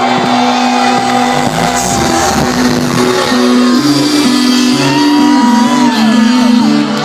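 Loud electronic dance music from a live DJ set over a festival sound system: held synth chords over a bass line that changes note every half second or so, with a few gliding higher tones.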